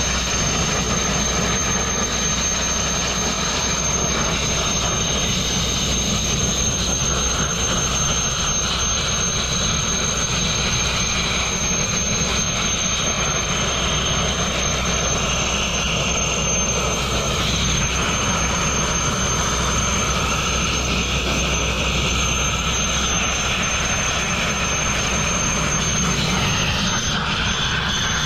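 Continuous abrasive blasting: the steady, loud hiss of a sandblast nozzle running without a break over the low hum of an air compressor.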